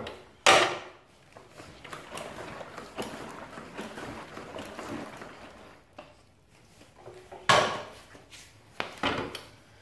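Handling noises: a sharp clack about half a second in and another about 7.5 seconds in, with rubbing and rustling between.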